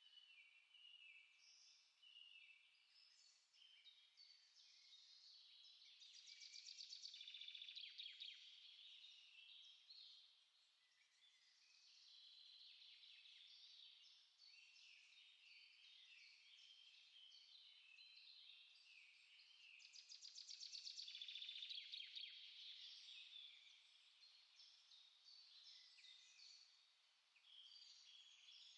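A faint chorus of small songbirds, many short high chirps and whistles overlapping without pause, swelling twice into louder rapid trills.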